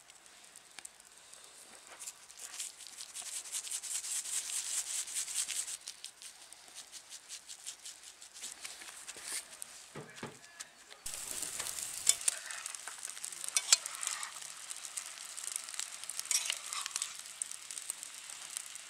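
Food sizzling and crackling as it fries in a pan over a campfire, with many sharp pops. The sound changes abruptly about six seconds in and again about eleven seconds in.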